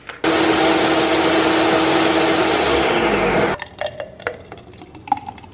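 Blender running at full speed, blending a thick smoothie of yogurt, almond butter and almond milk, for about three and a half seconds. Its pitch drops in the last second before it cuts off suddenly, followed by a few light knocks.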